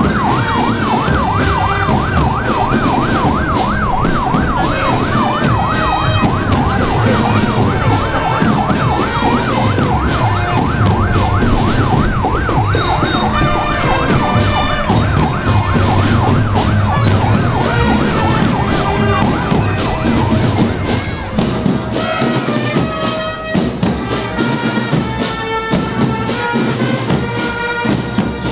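A siren sweeping rapidly up and down, a few times a second, that fades out about halfway through, over drumming and music.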